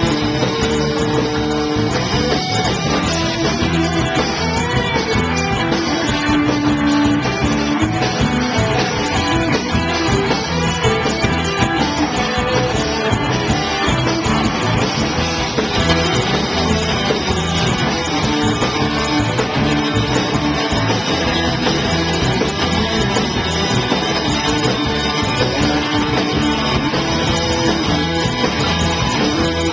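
Live rock band playing loudly and without a break: electric guitar, saxophone and drums.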